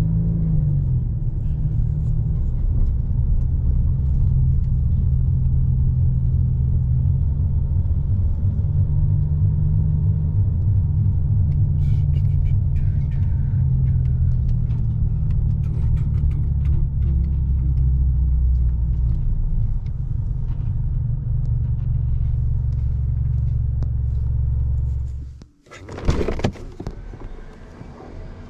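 Car engine running with a steady low rumble, which cuts off suddenly about 25 seconds in; a brief loud clatter follows.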